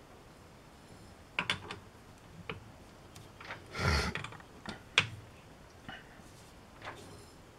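Metal clicks and knocks of a T-handle chuck key working the jaws of a four-jaw lathe chuck as a shaft is dialed in true. The clicks come irregularly, with a longer, louder scraping knock about four seconds in and a sharp click about a second later.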